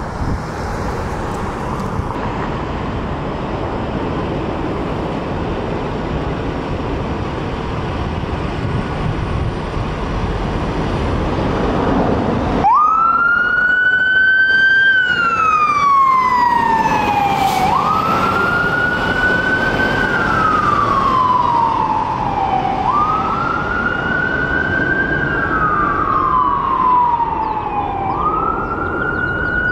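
Steady heavy-truck engine and road noise, then after a cut a fire ladder truck's siren wailing, rising quickly and falling slowly about every five seconds.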